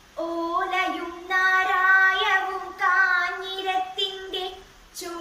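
A girl singing solo without accompaniment, holding long, gently wavering notes, with a short breath pause just before the end.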